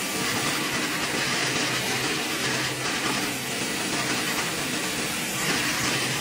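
Sawmill machinery running steadily: log carriage chains and band-saw headrig, a continuous mechanical noise with a hissing top.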